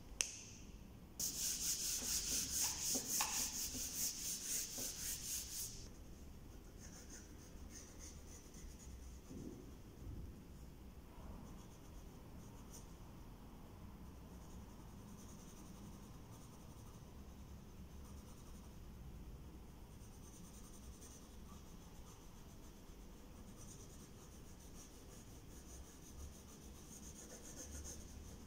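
Pencil drawing on paper on an easel board: a run of quick, evenly paced scratchy strokes for about five seconds near the start, then lighter, fainter strokes.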